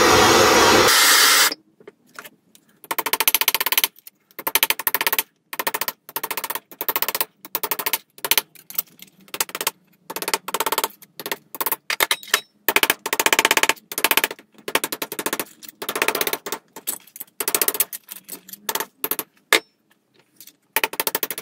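A handheld gas blowtorch hissing for about the first second and a half, then a steel body hammer striking 1 mm sheet steel against a dolly in quick bursts of many blows with short pauses between, shrinking the freshly heated panel.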